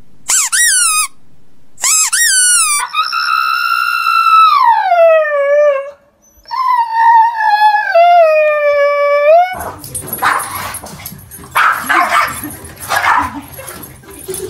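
Dogs howling: a few short, high, falling cries, then two long drawn-out howls that slide down in pitch, like huskies howling together. About two-thirds of the way in the sound changes to a noisier stretch of scuffling with short yips.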